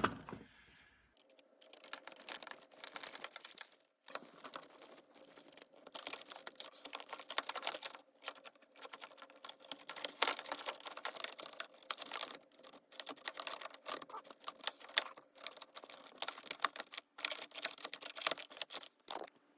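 Screwdriver tightening the wire terminal screws on a smart dimmer switch while the wires are handled: a long run of small, irregular clicks and scrapes with a few short pauses.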